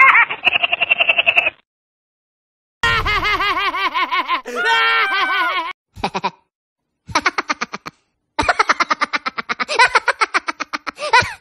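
A run of cartoon laugh sound effects: the tail of Woody Woodpecker's rapid staccato laugh, then after a short pause SpongeBob SquarePants's high, wavering laugh for about three seconds, then the Minions giggling in several short bursts of quick high-pitched laughter.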